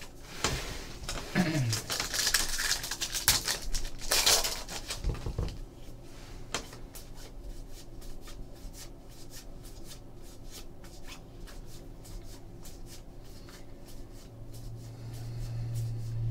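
2014 Bowman football cards handled by hand: rustling and sliding for the first few seconds, then a run of light clicks and flicks as cards are pulled one by one from the stack.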